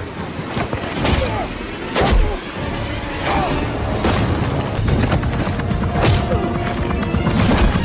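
Action-movie soundtrack: loud dramatic music mixed with heavy booms, crashes and whooshes, the sharpest hit about two seconds in.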